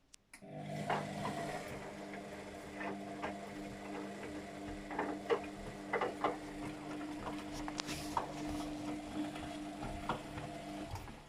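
Luxor WM 1042 washing machine running a Cotton 40° wash: the motor hums steadily as it turns the drum, with scattered clicks and knocks from the tumbling load. The hum starts about half a second in and stops shortly before the end, as the drum pauses between turns.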